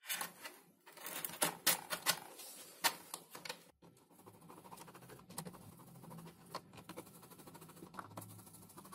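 Plastic retractable landing gear unit being pushed and clicked into its pocket in a foam wing, with sharp clicks and knocks. About four seconds in, a steady, scratchy ticking as small screws are driven by hand with a screwdriver into the retract's mounting plate.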